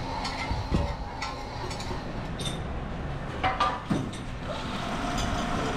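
Machine-shop noise: machinery running steadily, with sharp metallic clinks and knocks from cast-iron parts, one about a second in and a few more near the middle.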